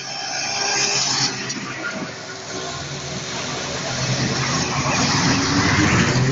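Classic cars, among them an air-cooled VW Beetle, driving past one after another on a wet road: engines running and tyres hissing on the wet asphalt. The engine noise builds in the second half, with a rising rev near the end.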